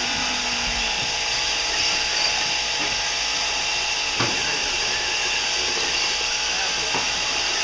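Electric RC rock crawler's motor and geared drivetrain whirring steadily as the truck crawls over rocks, with a single knock about four seconds in.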